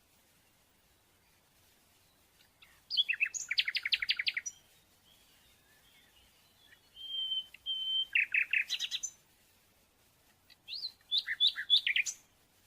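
Birdsong: a small bird sings three short phrases of rapid, high repeated chirps, each lasting one to two seconds with pauses between. The middle phrase includes a brief steady whistled note.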